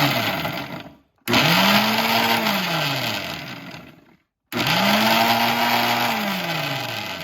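Electric blender grinding garlic, onion, ginger and cumin seeds into a paste. It runs in three pulses; each time the motor whine rises, holds, and then falls away.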